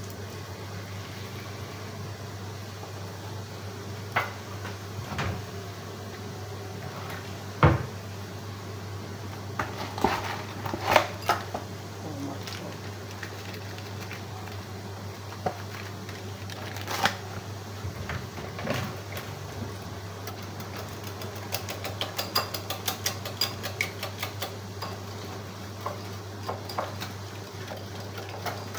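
Spoon stirring a yogurt-and-spice marinade in a ceramic bowl, clicking rapidly against the sides through the last several seconds. Before that come scattered knocks and clinks of handling the bowl, sachet and utensils, over a steady low hum.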